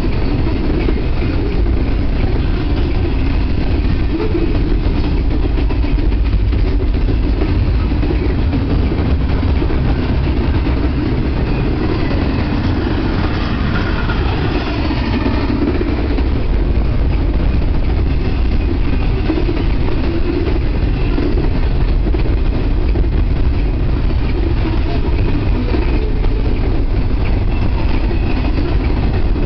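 Double-stack intermodal freight cars rolling past: a steady, loud noise of steel wheels running on the rails. A brief falling whine comes about halfway through.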